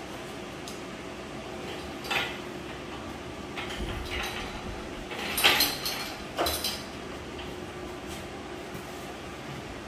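Small-block Chevy 350 engine hanging from a hoist, guided down into a pickup's engine bay: a handful of metal clunks and rattles, the loudest about halfway through, over a steady low hum.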